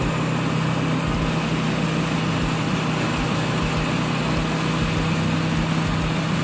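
Large crane-fed wood chipper running steadily under load as a conifer tree is fed in: a constant low engine hum under an even rush.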